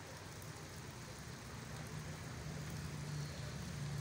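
A low, steady engine hum over faint background noise, growing louder over the last two seconds.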